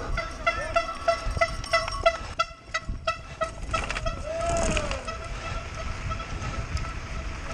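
Mountain bike disc brakes squealing in a high, pulsing tone whose pitch slides down about halfway through, over the rumble and rattle of the bike on rough trail.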